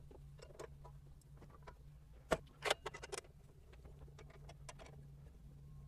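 Faint clicks and taps of metal parts being handled on a miter saw as the blade is fitted and the blade guard is brought back over it. A few sharper clicks come between about two and a half and three seconds in, over a low steady hum.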